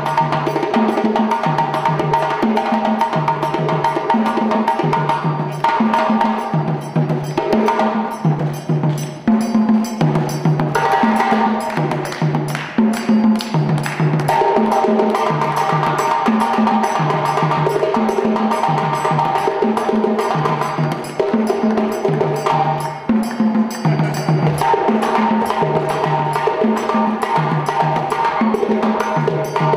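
West African drum ensemble playing a dununba rhythm on djembe and dunun bass drums: dense, fast strokes over a low two-note drum pattern that repeats every second or two.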